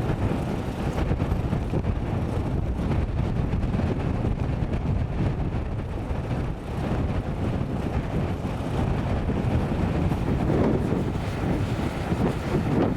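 Off-road vehicle engine running, mixed with wind buffeting the microphone.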